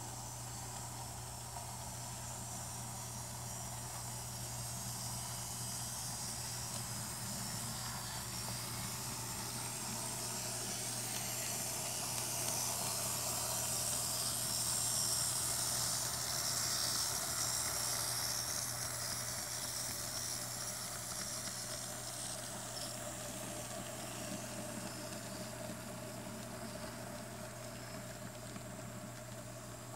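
N scale model freight train running on its track: a steady hiss over a low hum, growing louder towards the middle and easing off again.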